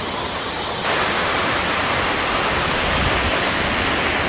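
Mountain waterfall rushing in a steady roar of white water; about a second in it becomes louder and brighter and stays that way.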